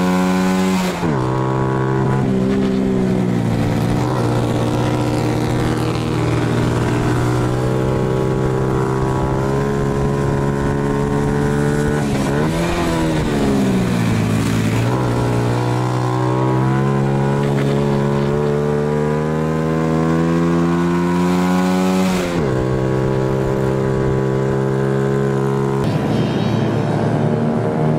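Honda Super Cub 50's single-cylinder four-stroke engine with a race muffler, heard from on board at racing speed: the pitch drops about a second in, dips and climbs back again halfway through, and falls once more near the end as the bike brakes and accelerates through corners. In the last two seconds it gives way to racing Cubs passing by.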